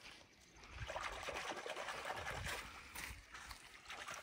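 Water trickling and splashing, starting about a second in and running on unevenly.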